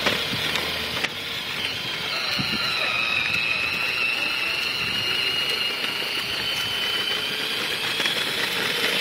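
Battery-powered ride-on toy car driving along: a high, steady whine from its electric drive motors sets in about two seconds in, over the rolling noise of its wheels on the pavement.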